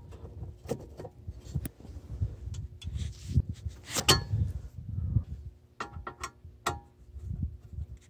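Scattered clicks and knocks of a duplex receptacle and its metal cover plate being pushed and fitted into a metal outdoor electrical box, with the sharpest click about halfway through and a quick run of clicks a little later, over a low handling rumble.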